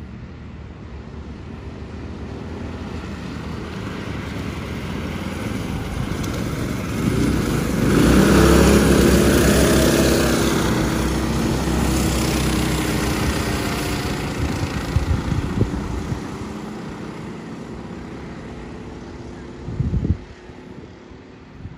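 Racing go-kart engines going past: the engine note builds, is loudest about halfway through as the karts pass close, then fades away. A short loud thump comes near the end.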